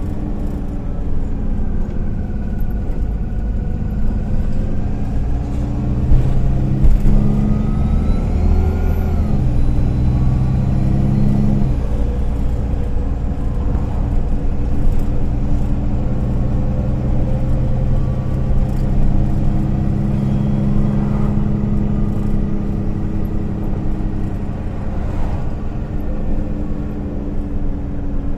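MAN Lion's City A20 NL city bus heard from inside the cabin, its engine pulling the bus along. The engine pitch climbs and then drops twice, about nine and twelve seconds in, as the gearbox shifts up, then holds steady at cruising speed, with light interior rattles.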